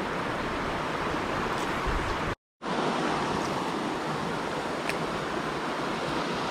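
Steady hiss of falling rain, with a few faint ticks; the sound drops out completely for a moment about two and a half seconds in.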